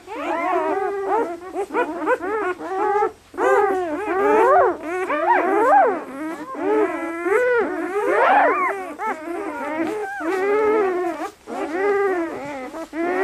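A litter of two-day-old German Shepherd puppies crying and whining, many high-pitched cries overlapping and rising and falling in pitch, with a short lull about three seconds in.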